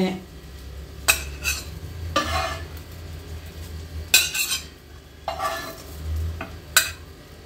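Metal spatula scraping and tapping against a ceramic plate as pieces of omelet sandwich are pushed into place, in about seven short separate strokes, over a low steady hum.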